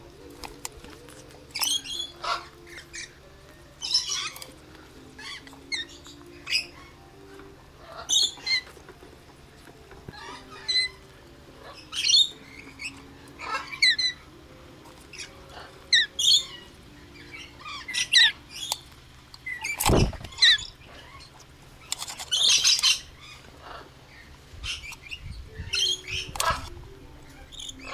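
Red lories giving short, shrill calls every second or two while they drink from a hand-held nectar cup, with one dull thump about two-thirds of the way through.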